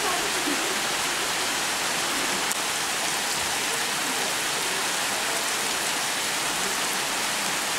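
Heavy downpour: a steady, even hiss of rain coming down hard.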